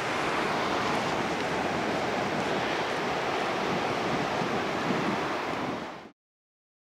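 Steady rush of ocean surf breaking on a beach, with wind on the microphone, fading out near the end.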